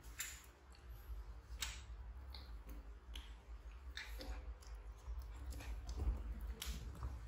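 Scattered light clicks and scuffs, with a few sharper ones, from a baby monkey and a puppy play-wrestling on a tiled floor, over a steady low rumble.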